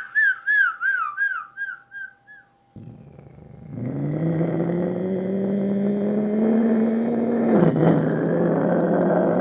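A man vocally imitating a police siren: a fast, high warbling wail repeating about three times a second, fading out over the first two seconds or so. About three seconds in, he switches to imitating a car engine with a low buzzing drone that slowly rises in pitch, drops briefly near the eight-second mark, then carries on.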